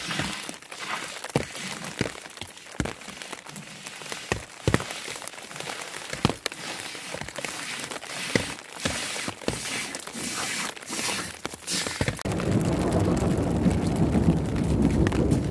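Falling snow pattering and ticking irregularly on surfaces over a soft hiss. About twelve seconds in, a dense low rumbling noise takes over.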